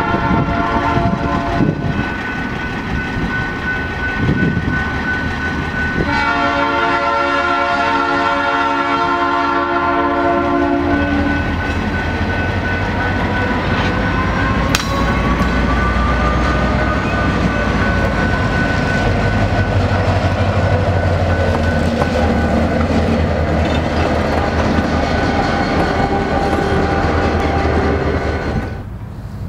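An EMD GP40M-2 diesel locomotive sounds its horn for the grade crossing: one blast ending about a second and a half in, then a long blast from about 6 to 11 s. Over a steady ringing tone, likely the crossing bell, the locomotive then passes with engine rumble and wheels on the rails. A brief wheel squeal rises and falls midway, and the sound cuts off near the end.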